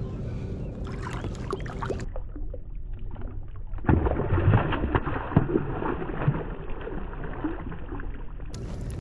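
Lake water sloshing around a hand holding a bass at the surface, then a sudden burst of splashing about four seconds in as the released bass leaps and thrashes away. The splashing dies down over the next few seconds.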